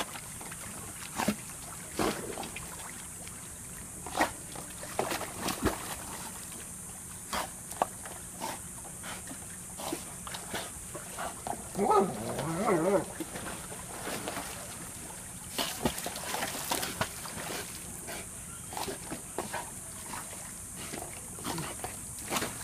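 German Shepherd playing in a small pool: scattered short splashes and knocks, and about halfway through a wavering, pitched vocal sound from the dog lasting a second or two.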